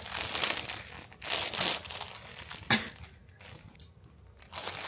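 Plastic bread wrapper crinkling as it is handled, in a few short bursts, with one sharp click a little under three seconds in.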